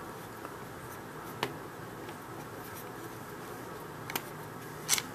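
A few faint clicks of a Torx screwdriver working a stubborn screw in a plastic game-controller housing, the loudest just before the end, over a steady low hum.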